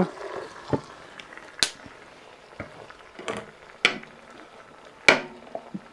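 Minced meat and sauce sizzling faintly in a hot cast-iron Dutch oven, with about five sharp pops spread through.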